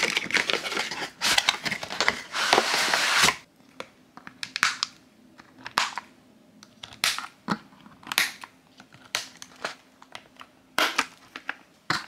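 Cardboard toy box and its packaging insert being opened, with rustling and tearing for the first few seconds. Then a series of separate snips as scissors cut the plastic ties holding the doll to its backing card.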